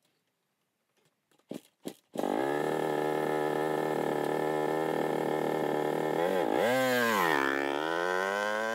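A few clicks, then a dirt bike engine starts abruptly about two seconds in and runs steadily. Near the end it revs up and back down, then climbs again.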